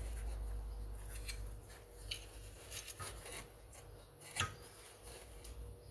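Faint handling noises from a Stihl 031AV chainsaw being taken apart by hand: plastic and metal parts rubbing, with a few short clicks, the clearest about four and a half seconds in, as a stuck part is worked at.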